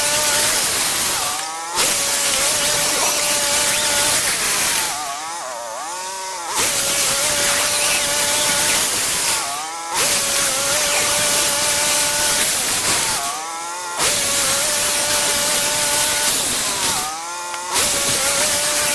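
Portable bandsaw sawmill running and cutting logs, its engine and blade making a loud, steady whine. Every few seconds the sound dips briefly as the pitch drops and climbs back.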